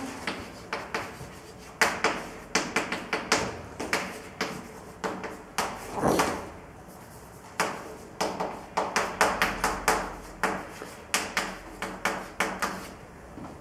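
Chalk writing on a blackboard: a string of quick taps and short scrapes as a formula is chalked up, in irregular clusters with a brief lull a little after halfway.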